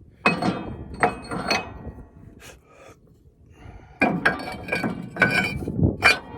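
Steel parts of a disc harrow clanking and ringing as they are handled: three clanks, a short pause, then a run of clanks from about four seconds in.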